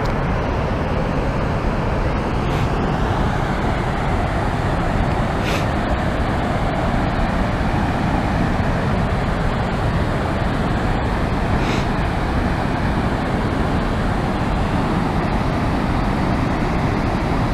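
Waterfall rushing steadily: water pouring into a pool.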